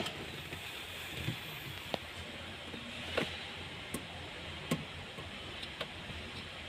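About half a dozen light, sharp clicks and taps, a second or so apart, as a hand tool works on the fuel pump assembly's mounting in the fuel tank opening. A faint steady hum lies underneath.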